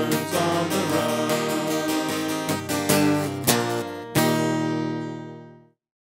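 Background music: strummed acoustic guitar chords, ending on a final chord a little past four seconds in that rings and fades away.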